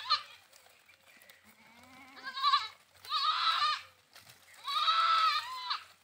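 Goats bleating: a short call at the start, then three loud, wavering bleats, the last about a second long.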